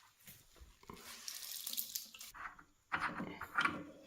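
Water running from a hose and tap into a sink as pressure is let out of a small storage water heater, starting as a thin hissing trickle. About three seconds in come louder, uneven splashes and knocks.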